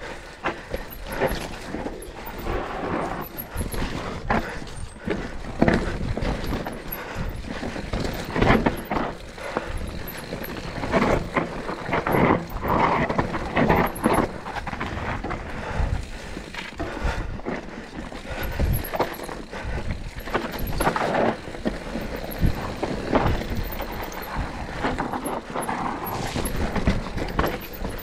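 Mountain bike descending a rough, rocky trail: a continuous irregular clatter of knocks and rattles from the tyres, chain and frame hitting rocks and bumps.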